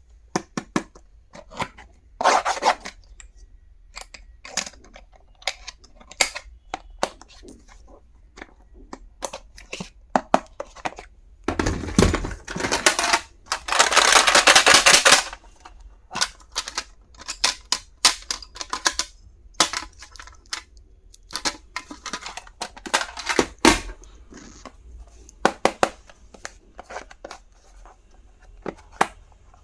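Packaging and small stationery items being handled, with scattered sharp clicks and short rustles throughout. The loudest sound is a tearing or crinkling of packaging that starts about 13 seconds in and lasts about two seconds.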